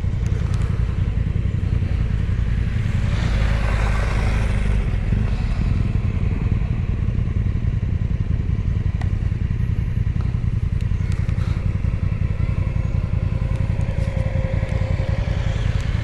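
Adventure motorcycle engine running steadily while riding along a dirt track.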